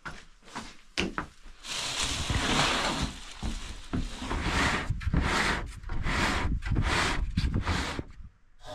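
Hands handling a yellow plastic storage barrel and its lid: a sharp knock about a second in, then a run of uneven rubbing and scraping bursts that stop shortly before the end.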